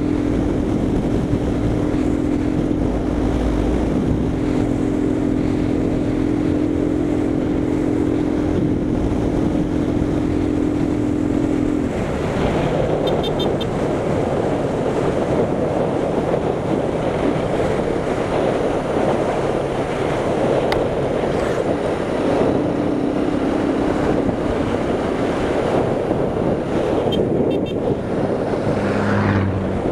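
Small single-cylinder motorcycle engine running steadily at cruising speed, with wind rushing over the helmet or handlebar microphone. About twelve seconds in, the steady engine note drops back and the wind noise takes over.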